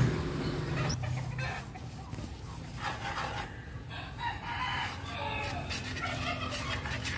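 Short pitched animal calls in the background, a few of them about a second apart, over the faint stirring of thick gravy in a pan with a wooden spoon.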